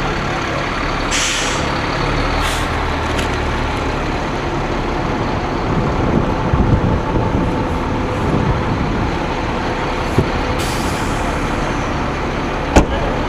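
Vehicle engine running steadily, with two short hisses of air, one about a second in and one near the end, and a sharp knock just before the end.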